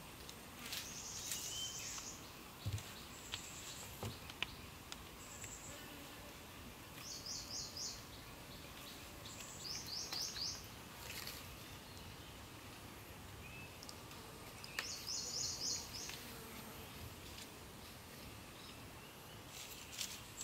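Short, high-pitched chirping trills from forest wildlife, repeating every few seconds. A few soft knocks come from green bamboo poles being handled and tied on the ground.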